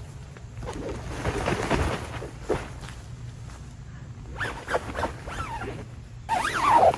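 Nylon fabric of a pop-up ground blind rustling as someone shifts around inside it. Over it come short sounds that slide up and down in pitch, twice in the second half; the second, near the end, is the loudest.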